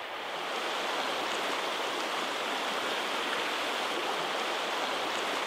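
Shallow creek running over a gravel bed: a steady rush of flowing water.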